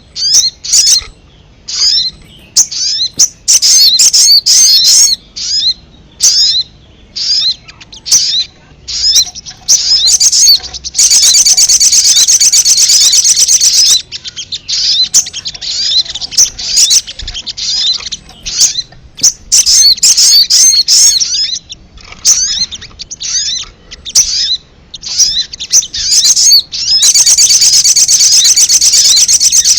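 Sogon (sogok ontong) birds calling in a lure recording: loud, rapid, high chirps and twitters. Twice the calling runs together into a dense, continuous trill lasting a few seconds.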